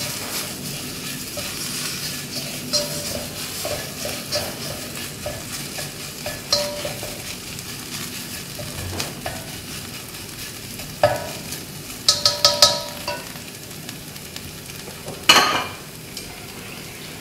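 Fried tofu pieces and chili spice paste sizzling in a wok while a spatula stirs and scrapes them, with scattered spatula clicks. A quick run of clicks comes past the middle and a louder scrape near the end.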